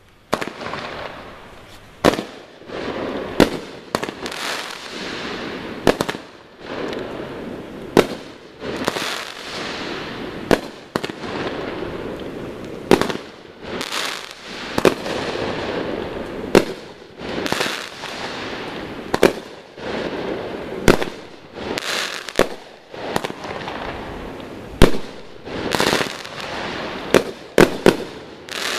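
Consumer fireworks going off in a rapid series: a sharp bang every one to two seconds, each followed by about a second of crackling hiss.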